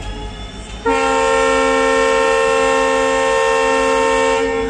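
Locomotive horn sounded once for departure. It is a steady blast of several notes together, starting about a second in and held for about three and a half seconds before cutting off.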